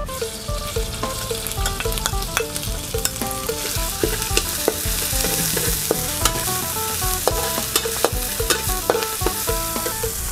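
Red curry paste frying in hot oil in a metal wok: a steady sizzle, with the scrape and clack of a metal spatula stirring it against the pan many times. The paste is being fried until fragrant.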